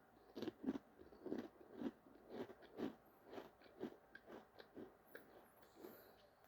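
A person chewing a Pringles potato crisp, with a steady run of crisp crunches about two a second that get fainter toward the end as the chip is broken down.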